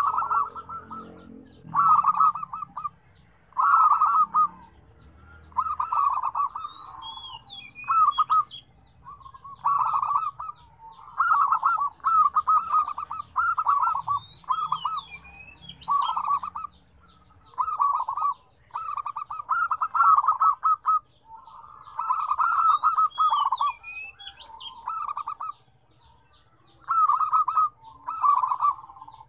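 Several zebra doves (perkutut) cooing over one another, each giving short trilled coo phrases about a second long, one after another almost without pause. Thin, high chirps sound above the coos.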